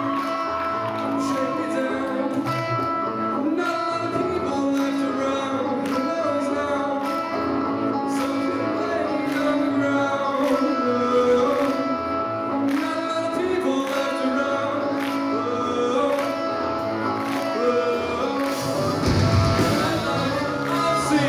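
A live band playing with a steady drum beat under sustained guitar-like notes and a bass line, with a heavier crash near the end.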